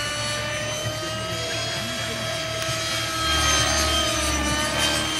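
Align T-Rex 600 radio-controlled helicopter in flight: a steady whine of its rotors and drivetrain in several layered tones, the pitch drifting slightly up and down as it manoeuvres.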